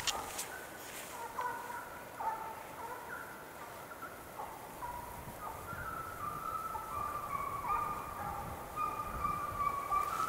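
Russian hounds baying out of sight as they run a hare: several long, overlapping voices at different pitches, growing louder in the second half.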